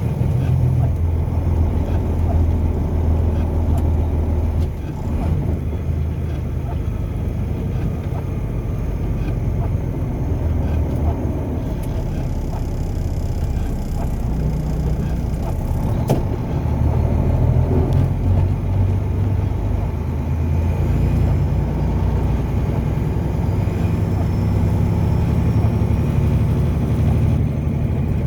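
Car driving along a road: steady low engine and tyre rumble that swells and eases, with a single sharp click about sixteen seconds in.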